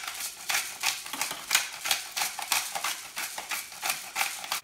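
Hand-twisted pepper mill grinding black peppercorns: a rasping crunch with each twist, repeated about three times a second.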